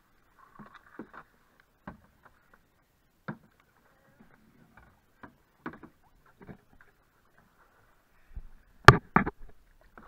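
A canoe being paddled: quiet paddle strokes and water, with scattered light knocks. Two sharp, loud knocks come near the end.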